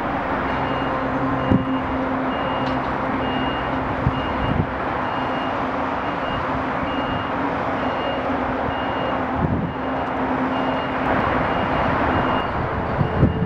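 Reversing alarm on heavy site plant beeping steadily over the running diesel engines of an excavator and dump truck, with a few short knocks.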